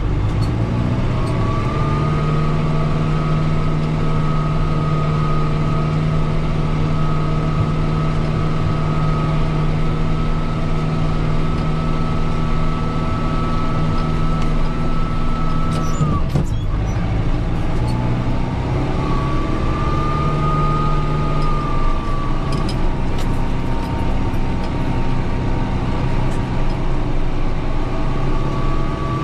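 Kubota M6040 tractor's four-cylinder diesel engine working steadily under load while pushing snow, with a high whine over the engine note. About halfway through, the engine note drops sharply and the whine stops, then both climb back, with a further dip and recovery later on.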